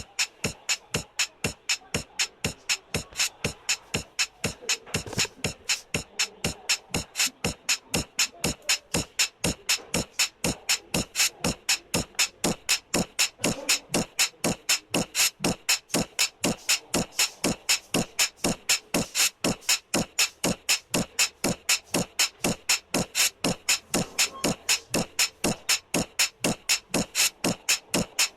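Background music with a steady percussive beat of sharp hits, about two to three a second.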